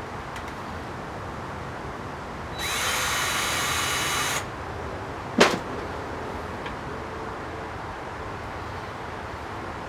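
A handheld power tool runs for about two seconds, its whine rising as it spins up, then stops. About a second later comes a single sharp clack, louder than the tool.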